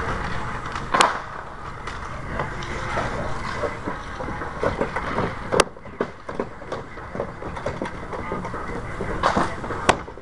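Old asphalt shingles being torn off a roof: scraping and knocking of a long-handled roofing shovel and loose shingles against the roof deck, with three sharp cracks spread through.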